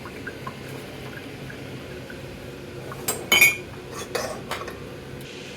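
Hard objects clattering and clinking as a small object is handled and dried: one loud clatter with a short ring about three seconds in, then a few lighter knocks, over a steady low hum.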